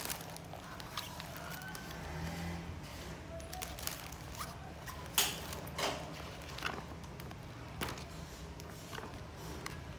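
Hands handling a clear plastic bag and clothing in a fabric backpack: crinkling and rustling with scattered crackles and taps, the sharpest a little after five seconds in, over a faint steady low hum.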